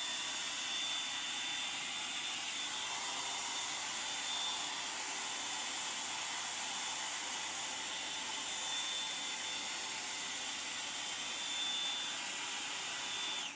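Electric hair dryer running steadily, a rush of air with a thin high whine, then cutting out suddenly at the end: the new dryer keeps shutting itself off on its own.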